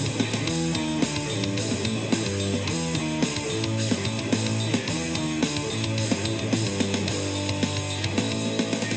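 Electric guitar played live through an amplifier: a quick line of picked notes stepping up and down in pitch, over a low held note.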